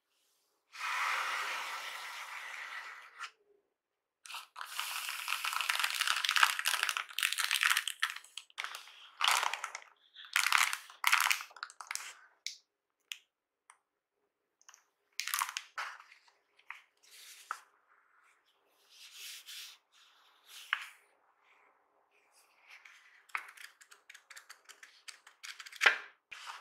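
Packaging rustling and crinkling in irregular bursts as the keyboard's black wrap and the box inserts are handled and slid out of a cardboard box. Paper sheets are flicked near the end, with one sharp snap shortly before it.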